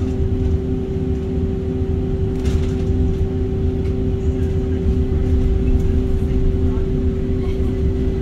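Tram running along the street, heard from inside the car: a steady low rumble with a constant humming tone, and a brief hiss about two and a half seconds in.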